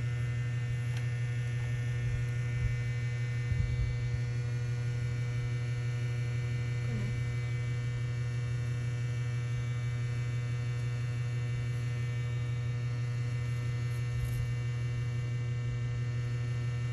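Steady low electrical hum with no change in pitch, with a couple of faint low bumps about two and a half and three and a half seconds in.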